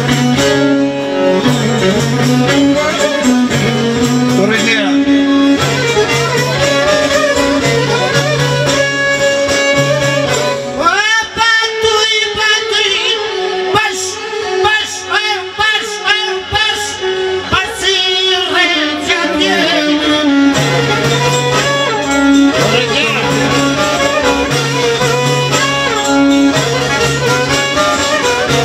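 Live Albanian folk song: a man sings in a wavering, ornamented voice over a long-necked lute and a steady low beat. The beat drops out for about ten seconds in the middle, leaving a high, ornamented melody on its own, then comes back.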